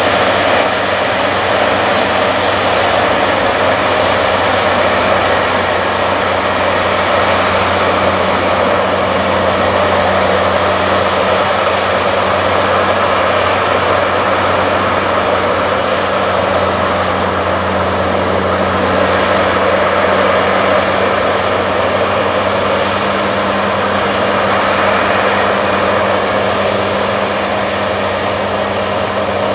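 John Deere X9 combine harvester running under load while harvesting wheat: a steady drone of engine and threshing machinery with a low, even hum beneath it.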